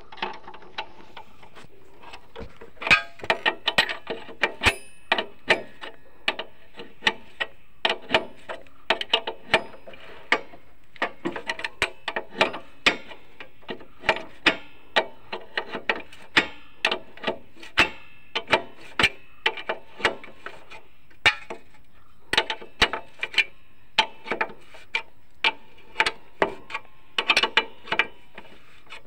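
Hand spanner working the rear axle nut of a Honda CB Unicorn motorcycle: runs of quick metallic clicks with a slight ring, broken by short pauses, as the nut is tightened fully.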